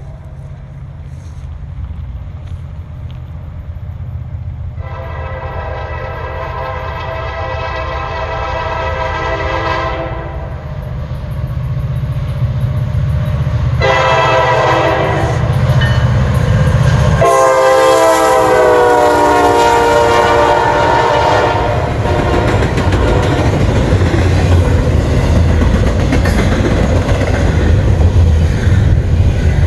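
A Norfolk Southern diesel freight locomotive approaches, sounding its air horn chord in three long blasts. The pitch drops as it passes. The diesel engines grow louder throughout, and after the last blast the locomotives and the rolling train rumble by.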